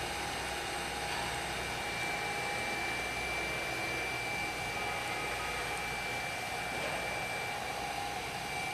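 Steady whooshing air noise from a fan or similar machine, with a faint, even high whine over it.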